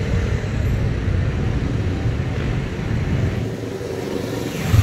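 Several motorcycles riding past at low speed, their engines running with a steady low rumble that grows louder near the end as the leading bikes come close.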